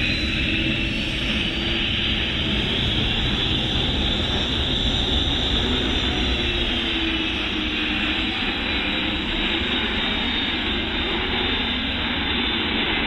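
Cessna Citation II's twin Pratt & Whitney Canada JT15D turbofans running as the jet rolls along the runway after landing: a steady high whine over a broad jet rush, its pitch dipping slightly midway as the aircraft passes.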